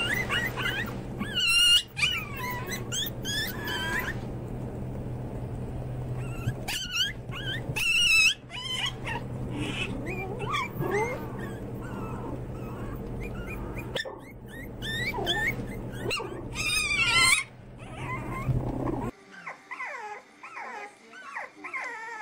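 A litter of white Pomeranian puppies yipping and whimpering in clusters of high, wavering squeaks over a steady low hum. About 19 seconds in, this gives way to French bulldog puppies whining.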